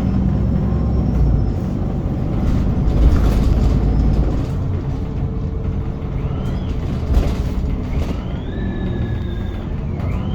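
VDL Pulsar bus's rear differential whining over the low rumble of the bus on the move. The high whine comes in twice in the second half, each time rising in pitch, holding, then falling away.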